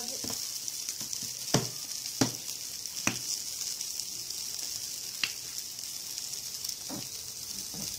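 Burger patties and buns sizzling steadily on an electric grill plate, with a handful of sharp clicks scattered through.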